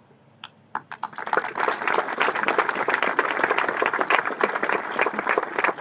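Audience applauding: a few scattered claps at first, building within about a second into steady applause.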